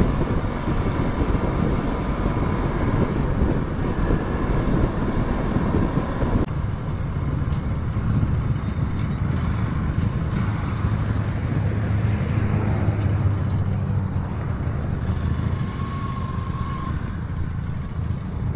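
Motorcycle running on the road with wind rushing over the microphone. About six and a half seconds in, the sound changes suddenly: the rushing noise drops away and a steady low engine hum is left.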